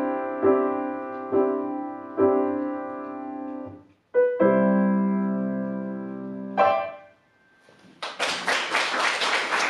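Yamaha piano playing the closing bars of a piece: chords struck about once a second that fade away, a brief pause, a long held chord and one last short chord. After a second of near silence, audience applause starts about eight seconds in.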